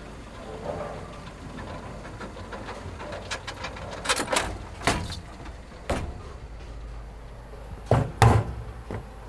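A string of sharp knocks and clacks, the loudest two close together near the end, over a steady low hum.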